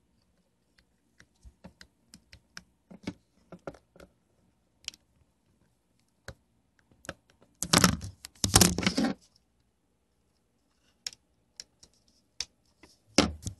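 Handling noise from a phone and its USB cable being picked up and plugged into a computer: scattered light clicks and taps, with a louder stretch of rustling and knocking about eight seconds in and a shorter one near the end.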